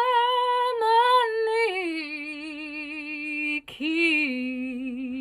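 A woman singing unaccompanied in long held notes with vibrato. Partway through, the note steps down lower; after a short breath she sings the word "harmony" and settles onto a lower held note.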